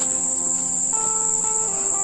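Steady, high-pitched insect drone, like crickets, running without a break, over background music whose plain melody moves from note to note every fraction of a second.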